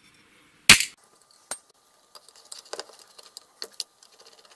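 Metal parts of a transponder being handled on a workbench: one loud knock a little under a second in, then a lighter click and a run of small clinks and rattles.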